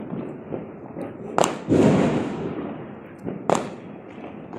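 Diwali firecrackers going off: two sharp bangs about two seconds apart, the first followed by a louder, longer boom, over background voices.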